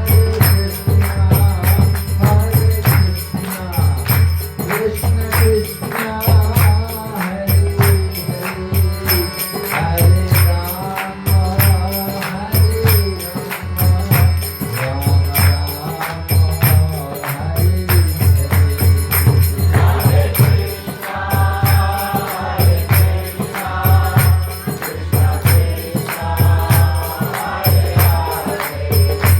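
Devotional kirtan singing over a steady rhythm from a low hand drum and ringing hand cymbals.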